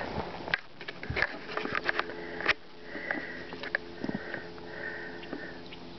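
A dog sniffing in a run of short, hissy breaths, after a few sharp clicks and knocks in the first couple of seconds.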